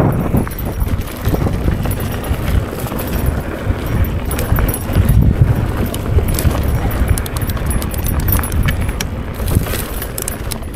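Mountain bike being ridden over a rough, dry dirt singletrack: the bike rattles and clicks over the bumps, over a steady low rumble of wind on the camera microphone.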